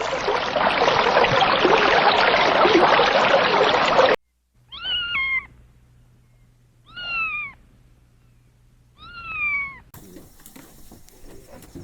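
A loud rushing noise that cuts off abruptly, then three short meows from a cat, about two seconds apart, each falling slightly in pitch.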